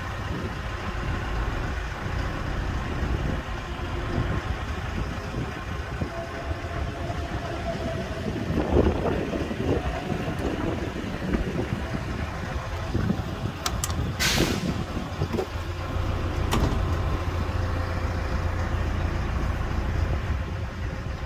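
Heavy machinery engine running steadily with a low rumble. A few clicks and one short, sharp hiss come about two-thirds of the way through.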